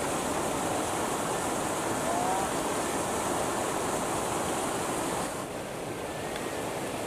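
Steady rush of river water spilling over a small cascade, easing slightly about five seconds in.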